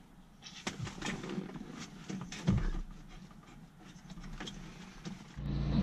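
Plastic dashboard trim panel being worked loose and handled: scattered sharp clicks and short scrapes of plastic. A steady low hum starts abruptly near the end.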